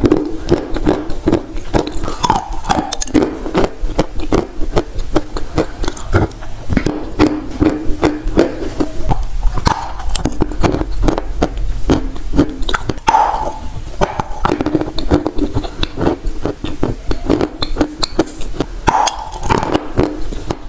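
Close-miked biting and chewing of dry chunks of edible Turkestan clay: a dense, continuous run of sharp crunches and crumbling.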